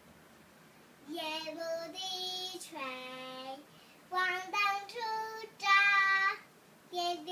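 A young girl singing solo with no accompaniment. She comes in about a second in and sings short phrases of held notes, with two brief pauses.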